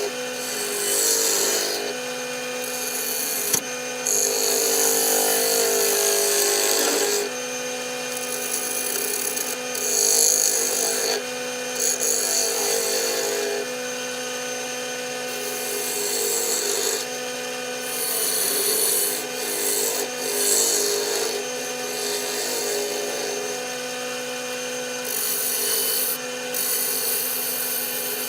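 Wood lathe running with a steady hum while a tool works the spinning walnut blank, a scratchy, hissing rubbing that swells and drops away pass after pass.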